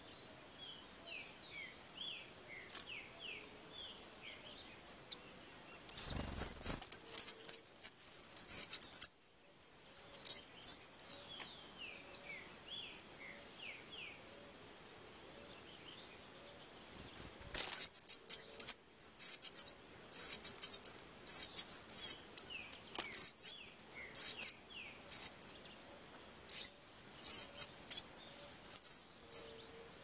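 Pileated finch nestlings giving very high, rapid begging chirps in bursts, a spell about six seconds in and a longer one from about seventeen seconds on. Between the bursts a faint bird song of short falling whistles repeats.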